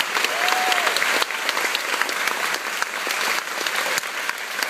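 Audience applauding: a dense, steady clatter of many hands clapping at once after a song ends.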